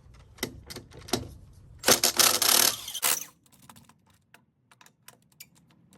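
Socket wrench and breaker bar working the lug nuts of a Ram 2500 front wheel to break them free. A few sharp metallic clicks, a harsh grating burst lasting about a second around two seconds in, then scattered faint clicks.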